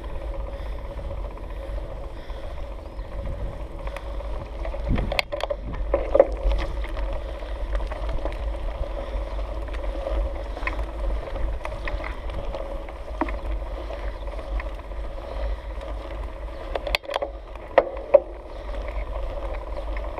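Mountain bike riding uphill on concrete, its knobby tyres rolling with a steady rumble and hum on the bike-mounted camera's microphone. A few sharp clicks and knocks from the bike come about five seconds in and again near the end.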